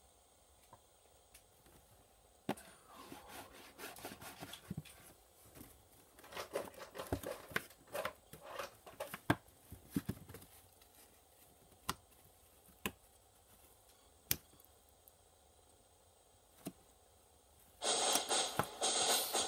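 Faint room tone broken by a stretch of clicking and crinkly rustling, then a few single sharp clicks. Near the end a much louder, steady rush of noise starts suddenly.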